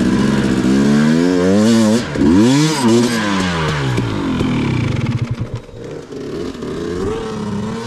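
Two-stroke dirt bike engine under riding load, its pitch climbing, dropping and climbing again several times with the throttle, then running lower and steadier near the end.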